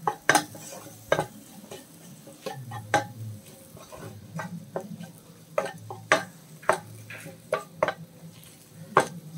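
Wooden spatula stirring a thick onion-tomato masala in a stainless steel pot, with irregular scrapes and knocks against the metal roughly every second. The masala sizzles underneath.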